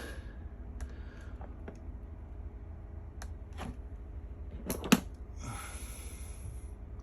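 Small clicks and handling noises of hands and small tools on a plastic connector and its pins, with one sharp click about five seconds in followed by a short rustle, over a steady low hum.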